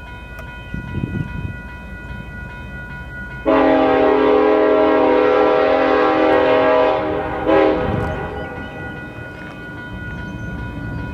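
Diesel locomotive air horn sounding one long blast of about four seconds, starting a few seconds in, with a brief surge just before it cuts off. Under it, the low rumble of the slowly moving consist's diesel engines (an ES44AC and SD70-series units).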